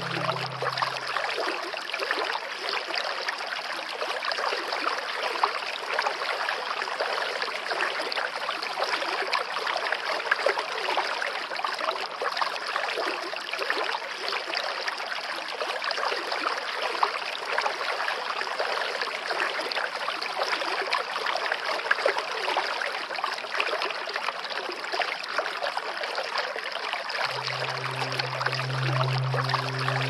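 Small stream cascading over rocks in a little waterfall: a steady splashing and trickling rush of water.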